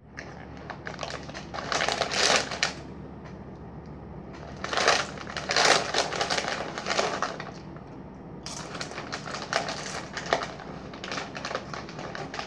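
Crinkly snack-chip bags being handled, rustling and crackling in three bouts.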